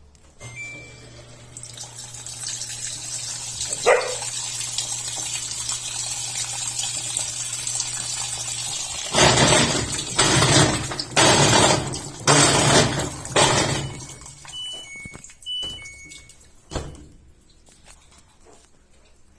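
LG washing machine running with water: a steady low hum with water rushing in, then several loud surges of water. A few short electronic beeps and a single thump follow near the end.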